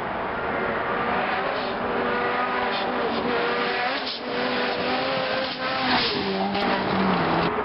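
Race car on a gravel hill climb approaching at full throttle and passing close, its engine note climbing, dropping back and climbing again, loudest as it goes by about six seconds in.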